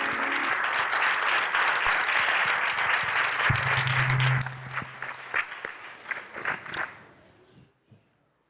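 Audience applause, dense at first, then thinning to scattered single claps that die away about seven seconds in.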